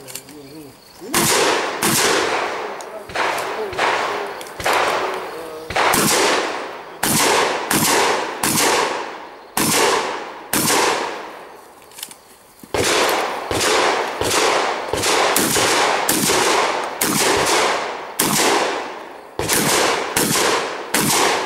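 Shotgun firing a long string of shots, about two dozen, spaced roughly half a second to a second and a half apart, each sharp crack trailing off in a short echo. There is a pause of under two seconds near the middle before the firing resumes.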